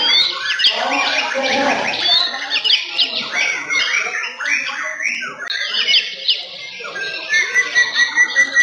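Several white-rumped shamas (murai batu) singing at once in competition: fast whistled phrases, sweeping notes and chirps overlapping one another, with a quick run of short repeated notes near the end.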